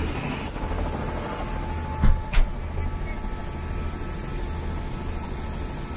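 Steady low engine rumble, with two sharp knocks about two seconds in, a third of a second apart.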